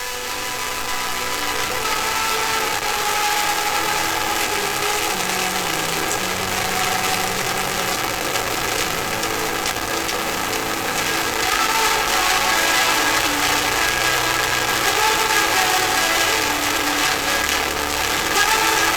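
Sound-controlled plasma arc giving a continuous buzzing hiss, with held pitched notes running through it that change every second or so, as the plasma reproduces an audio signal.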